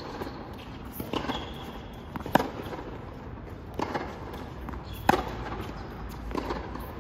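Tennis rally on a hard court: Dunlop AO tennis balls popping off racket strings and bouncing, a sharp pop every second or so, the loudest strikes at about two and a half seconds apart.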